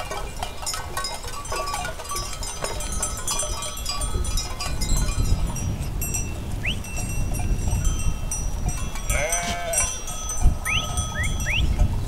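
A flock of sheep and goats on the move, with many small livestock bells clinking irregularly. About nine seconds in, one animal bleats once; a few quick rising chirps follow near the end.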